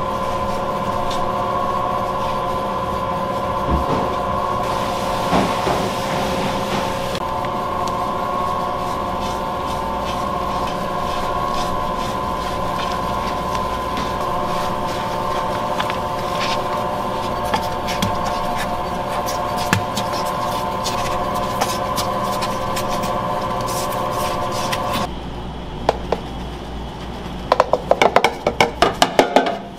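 Sinmag commercial bakery mixer running, its motor giving a steady whine over a low rumble as the hook works flour and eggs into dough in the steel bowl. Near the end the whine drops away to a low rumble and a rapid run of sharp knocks follows.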